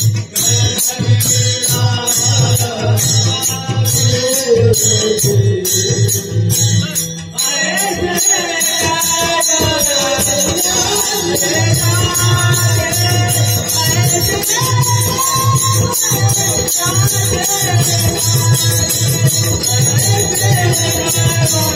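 Kirtan music: a pakhawaj drum plays a fast, steady rhythm under rapidly jingling hand cymbals, with a wavering melody above. The drum drops out for about a second roughly seven seconds in, then comes back.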